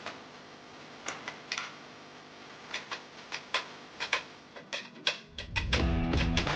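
Irregular sharp clicks or taps, a few a second, then background music with bass and guitar comes in loudly about five seconds in.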